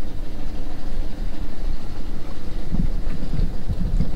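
Wind buffeting the microphone on the deck of a sailboat under way, with the boat's engine running steadily underneath; the gusts hit harder near the end.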